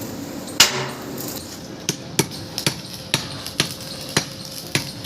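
Repeated sharp metallic clanks at an uneven pace, roughly two a second, with one loud strike about half a second in.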